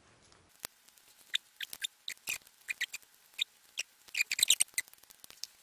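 Small sharp clicks and ticks of plastic and metal parts of a wall light-switch insert being handled and pushed into its wall box, with a quick run of clicks about four seconds in.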